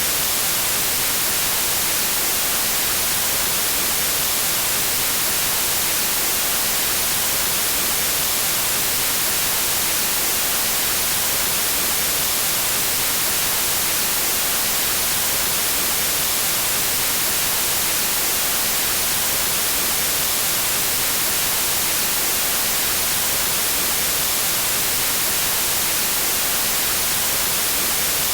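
Steady synthetic white noise: an even, unchanging hiss, strongest in the high frequencies.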